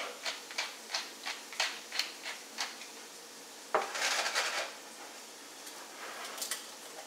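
Pepper mill twisted by hand over a frying pan: a regular run of short grinding clicks, about three a second. Just before the four-second mark the frying pan of onions is handled on the stove, giving a short scraping rush, and a few small knocks follow near the end.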